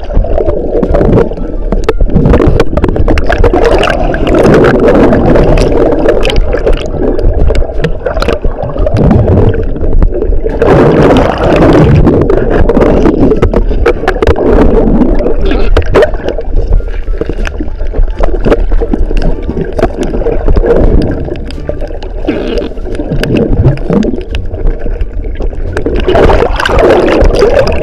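Loud, muffled sloshing and gurgling of water, with many small knocks and clicks throughout.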